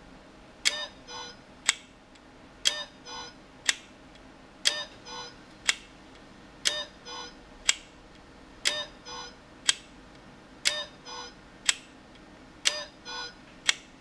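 Candy-house digital kitchen timer sounding its alarm: a short electronic chime of three quick notes, repeated every two seconds, seven times in a row.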